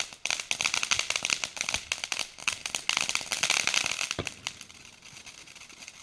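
Firework crackling: a dense, rapid run of small sharp pops with one heavier pop about four seconds in, then the crackle dies down to a faint tail.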